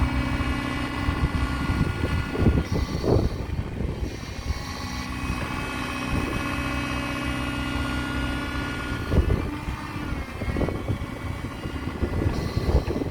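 A JCB 48Z-1 mini excavator's Perkins 404D-22 four-cylinder diesel running, with a hydraulic whine that shifts in pitch as the machine works. There are clusters of knocks and clanks a few seconds in, around nine seconds, and near the end.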